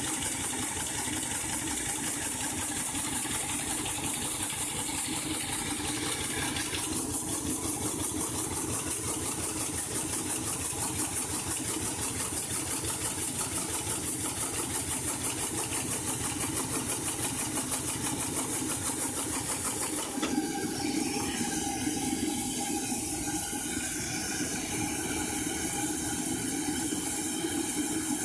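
Miniature live steam locomotive in steam: escaping steam hissing, with a fast, even pulsing beat. About twenty seconds in, the beat fades and a plainer hiss remains.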